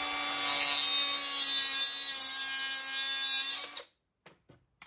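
Milwaukee M12 Fuel compact cordless cut-off wheel running at speed and cutting through the casing of a throttle cable, a steady high-pitched whine with a grinding hiss. It stops abruptly about four seconds in.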